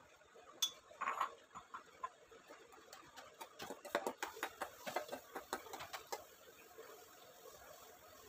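Metal spoon scraping and clinking against a stainless steel bowl while scooping chutney out into a serving bowl: a run of faint, irregular clinks and scrapes that thins out over the last couple of seconds.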